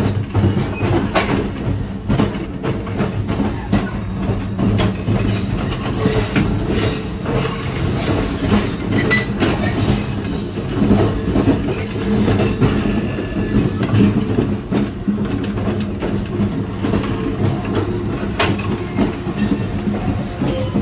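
A moving New Jersey Transit double-deck passenger train heard from the vestibule between two cars: a steady loud rumble of the running train, with frequent sharp clanks and rattles and a brief faint high squeal partway through.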